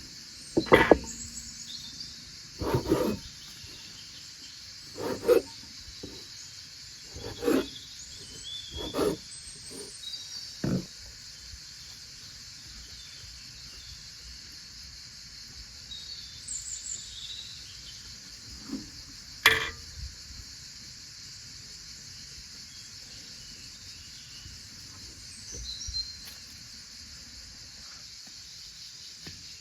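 Steady insect chorus, with a few short bird chirps. Over it, a series of knocks and handling sounds every second or two through the first ten seconds, and one sharp knock a little before the twenty-second mark.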